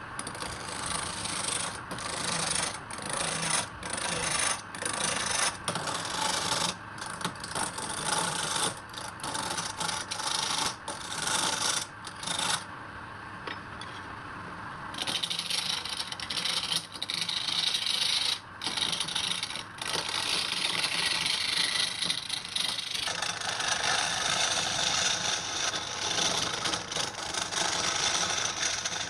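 Wood being worked by hand with a tool rubbing across it: strokes about once a second for the first dozen seconds, a short lull, then continuous rubbing from about halfway on.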